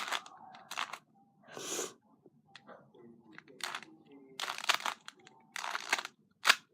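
Plastic 3x3 puzzle cube being turned by hand to solve one face: irregular clacks and scrapes of the layers rotating, in short bursts of a few turns with pauses between.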